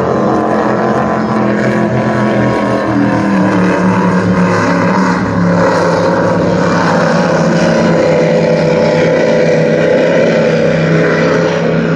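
MTI 40 offshore racing powerboat running flat out across the water, its engines giving a loud, steady drone whose pitch shifts slightly as it passes.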